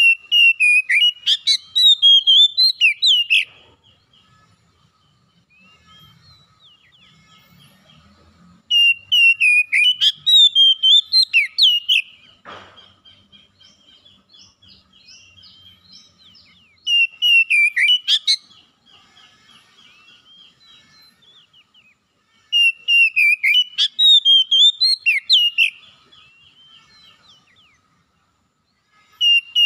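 Male oriental magpie-robin (kacer) in full song: four bouts of rapid, varied whistled phrases, each a couple of seconds long, separated by short pauses.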